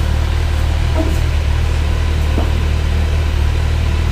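2022 Kawasaki Ninja 1000 SX's inline-four engine idling steadily, warmed up, with its idle settled low.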